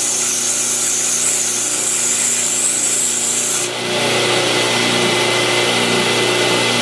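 Homemade 2x72 belt grinder running, with steel held against the belt to grind off rust: a high grinding hiss over the motor's steady hum. The hiss eases about three and a half seconds in as the contact lightens, while the belt keeps running.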